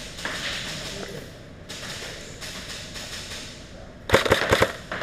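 A short, rapid burst of airsoft gunfire, six or seven sharp cracks in just over half a second, about four seconds in, after a stretch of soft shuffling noise.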